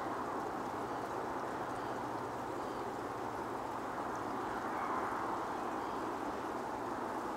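Steady outdoor ambience: an even rushing noise with a faint low hum beneath it, and a few faint, brief waterbird calls.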